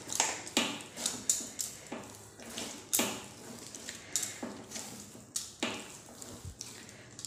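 Hands kneading soft wheat dough with ghee on a steel plate: irregular pressing and knocking strokes of the dough against the metal, about one or two a second, with glass bangles clinking on the kneading wrist.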